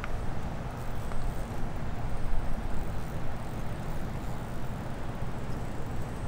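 Wind blowing across the microphone: a steady low-pitched noise.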